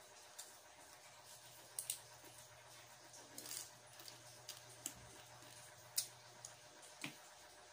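Quiet eating by hand: scattered short clicks and crackles of cooked shrimp being peeled, sucked and chewed, the sharpest about six seconds in, over a faint steady hum.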